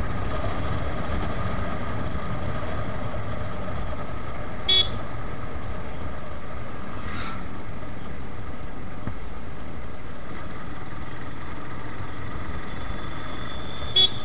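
Suzuki Gixxer motorcycle riding at a steady speed, its engine and the wind on the mic making a steady rumble. Two short horn beeps sound, about five seconds in and again near the end.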